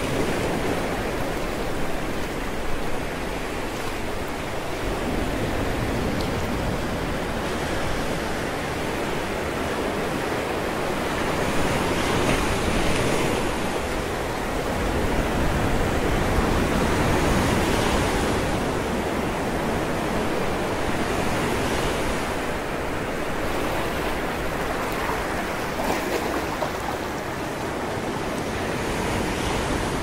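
Sea waves breaking against a rocky shore: a continuous rush of surf and spray that surges louder a few times.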